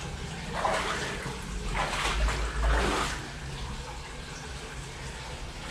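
Steady running water echoing in a brick storm-drain tunnel, with a few short scuffs. About two seconds in comes a deep rumble from trucks passing on the street overhead.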